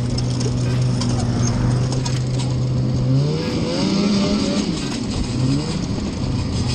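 A small engine idling steadily, revved up once a little past halfway, then settling back to idle.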